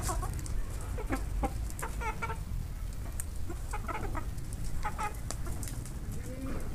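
Chickens clucking in short, scattered calls while feeding, with a few sharp clicks among them.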